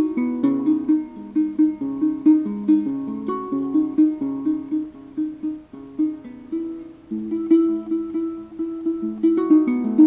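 Ngoni, a West African gourd-bodied harp-lute, plucked in a flowing pattern of quickly repeated notes over a shifting melody and lower bass notes. It grows softer for a couple of seconds in the middle, then picks up again.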